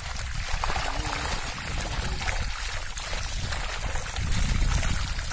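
Shallow water splashing and running as a cast net full of small fish is hauled over wet mud, with a low rumble that grows louder about four seconds in.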